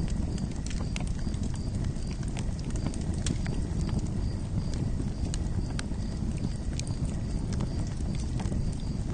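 Campfire burning: a steady low rumble of flames with irregular sharp crackles and pops.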